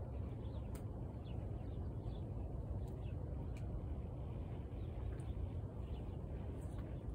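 Outdoor background: a steady low rumble with faint, short bird chirps scattered through it and a few light clicks.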